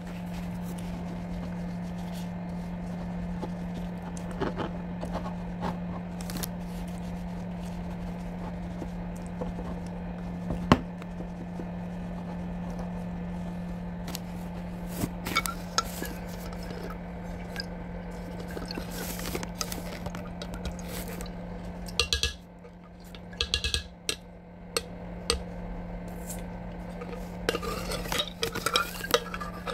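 Metal utensils clinking and scraping against a cooking pot now and then, over a steady low hum, with one sharper knock about a third of the way through and more clatter near the end.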